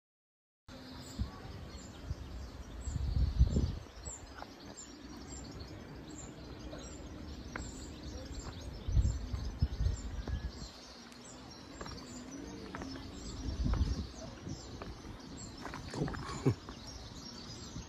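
Outdoor ambience of small birds chirping over and over, with gusts of wind buffeting the microphone; three stronger gusts come a few seconds apart.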